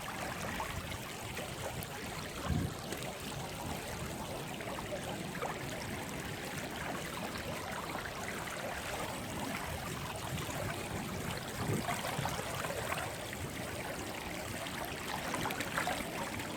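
Small river's running water, a steady rush and trickle, with a couple of faint knocks.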